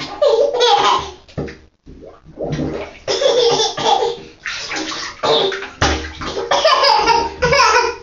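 Air bubbling out of a plastic toy teapot pushed under bathwater, in repeated rough, gurgling bursts that sound like farts.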